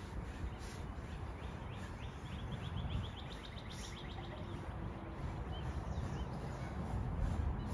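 Birds chirping in runs of quick repeated notes over a steady low rumble.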